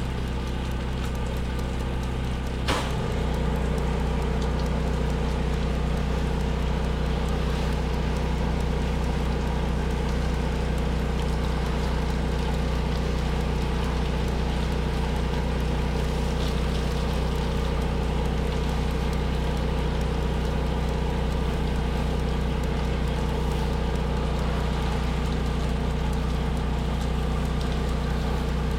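Soft-wash spray rig's pump motor running steadily with a hiss of chemical spray. About three seconds in there is a click, after which the motor's note changes and it runs on at a steady, slightly louder level.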